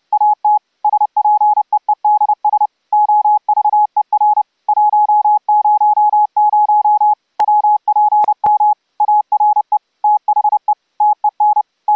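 Morse code sent as a single steady audio tone keyed on and off in fast runs of dots and dashes: an audio-frequency CW (AFCW) keying tone from paddles, routed to an Elecraft K3S transceiver for transmit. A few sharp clicks come in the middle.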